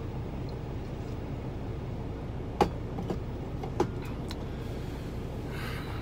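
Steady low rumble of a semi truck's diesel engine idling, heard from inside the cab. A few sharp clicks come in the middle, the loudest about two and a half seconds in.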